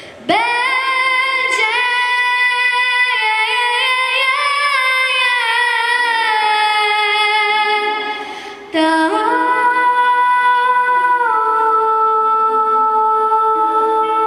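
A young girl singing into a handheld microphone: two long phrases of held, sliding notes, with a short breath between them about nine seconds in.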